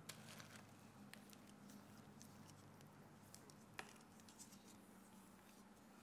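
Faint, scattered light ticks and crackles as a thick stream of melted white chocolate is poured over a bowl of pretzels, rice cereal squares and candy-coated chocolates, with one sharper click nearly four seconds in.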